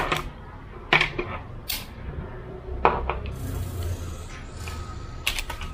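Sharp clicks and snaps of hand wiring tools: a ratcheting crimper squeezing a blue insulated connector onto a wire, then a self-adjusting wire stripper clamping a red wire, with a short scraping hiss partway through.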